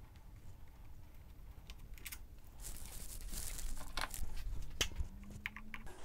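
Faint handling noise of hands working on a motorcycle's handlebar controls: a few scattered clicks and a brief rustle about halfway through.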